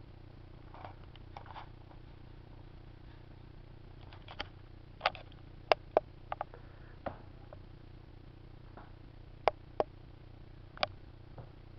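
A kitten biting and pawing at the wooden seat of an office chair: about ten sharp, irregular clicks, starting about a third of the way in, over a low steady hum.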